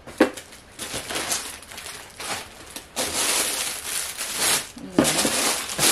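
Plastic bags wrapping clothing crinkling and rustling as they are handled and lifted out of a cardboard box, in irregular bouts that grow louder and denser about halfway through.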